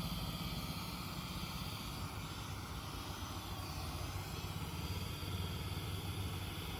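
Kerosene pressure lantern (500 candlepower) burning, its pressurised burner giving a steady low rumble with a hiss over it.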